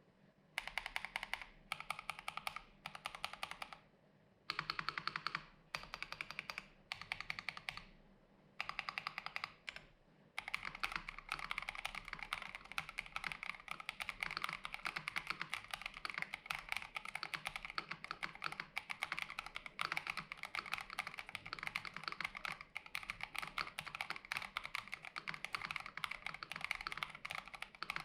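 Typing on an AKKO ACR64 mechanical keyboard fitted with lubed Gazzew Boba U4T tactile switches on an FR4 plate, with plate foam, a tape mod and ASA-profile keycaps. Short runs of quick keystrokes broken by pauses for the first ten seconds or so, then continuous fast typing.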